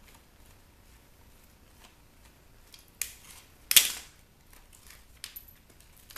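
Plastic housing of a portable CD/tape player cracking and snapping as a small speaker is worked free by hand: a sharp crack about three seconds in, a louder snap just after it, then a few lighter clicks.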